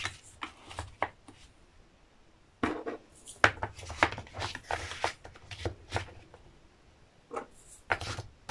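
Small round plastic drill containers being picked up, moved and set into a foam storage tray: light plastic clicks and taps, a few at first, then a busy run from about two and a half to six seconds in, and two more near the end.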